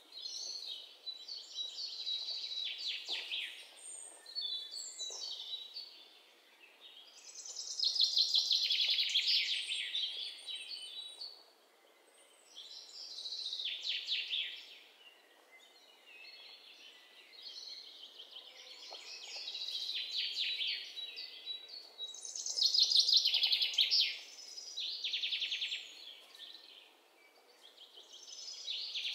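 Songbirds singing, a trilled phrase rising and fading every few seconds.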